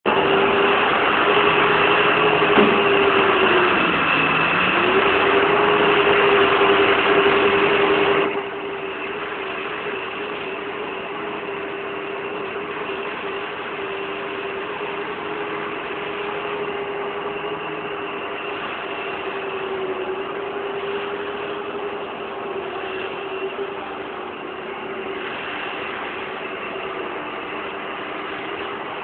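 Engine of asphalt-paving machinery running steadily with a constant hum. About three seconds in its pitch sags and then recovers; about eight seconds in the overall noise drops noticeably and the engine runs on more quietly.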